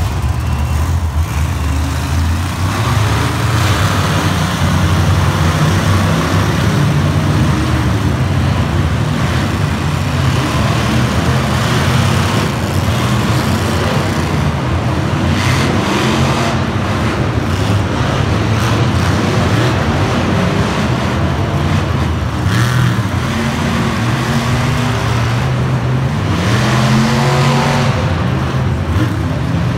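Several monster trucks' supercharged V8 engines running together as the trucks drive warm-up laps on a dirt arena floor. The engines rise and fall in pitch as they rev, several times over.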